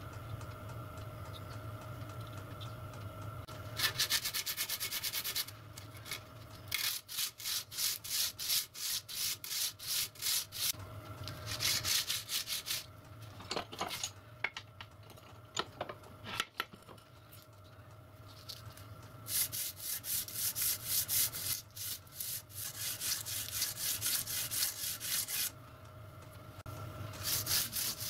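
Hand file stroking back and forth across a brass gib strip clamped in a bench vice, about three strokes a second, in several spells with pauses between. This is detail filing to bring the gib down a few thousandths to fit its slot in the cross slide.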